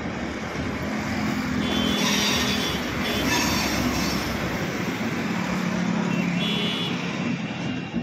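Steady rumble of a passenger train pulling slowly out of the station, mixed with urban traffic noise. Two brief high-pitched whines are heard, about two seconds in and again near the end.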